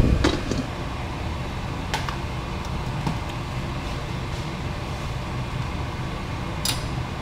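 Cookware clatter as a pan lid is lifted off a pan at the start, then a few light clicks of a utensil against the pan, over a steady low fan-like hum.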